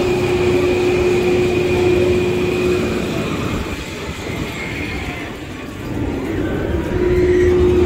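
Roller coaster lift hill machinery running: a steady droning whine as a train is pulled up the GateKeeper's lift. It drops out about three seconds in and comes back near the end, over general outdoor crowd and wind noise.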